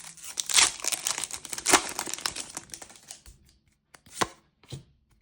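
Crinkling and tearing of a Disney Lorcana booster pack's wrapper as it is ripped open. This is followed by a few short taps and rustles of the cards being handled near the end.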